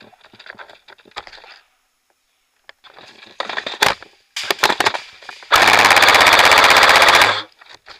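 Airsoft gun firing: a few single sharp cracks, then a fast full-auto burst lasting about two seconds.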